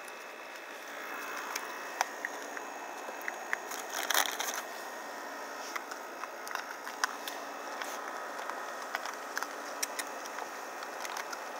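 Raccoons eating Ritz crackers: irregular crunching and clicking, with a denser burst of crackling about four seconds in.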